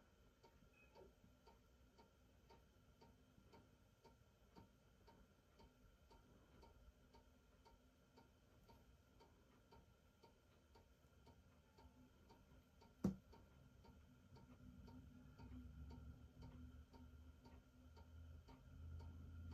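Near silence with faint, steady ticking at about two ticks a second, and a single sharper click about thirteen seconds in.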